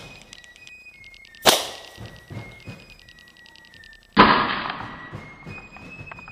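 Potato cannon shots: a sharp bang about a second and a half in, then about four seconds in a louder blast that dies away over a couple of seconds. Electronic beeping music plays along.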